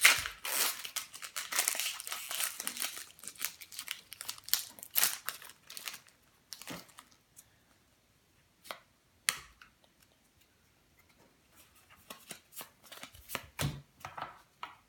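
A foil Pokémon booster pack being torn open and crinkled, a dense crackle over the first half. Then scattered light clicks and taps as the cards are handled, with a quiet stretch in between.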